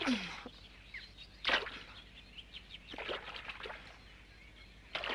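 Cartoon water sound effects: splashing and sloshing in short bursts, the loudest about one and a half seconds in.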